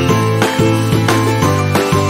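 Background music: an instrumental tune with a steady beat.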